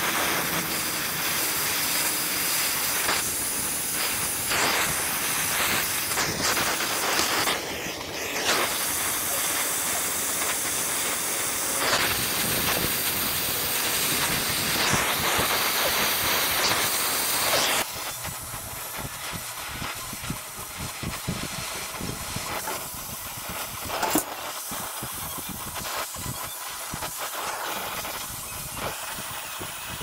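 Oxy-acetylene brazing torch flame hissing steadily as copper refrigerant lines are brazed to an air-conditioner condenser's service valves. About eighteen seconds in the hiss drops to a quieter level, with a single sharp click a few seconds later.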